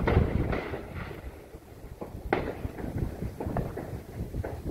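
Fireworks going off: a sharp bang right at the start, another about two seconds in, and a few smaller pops near the end.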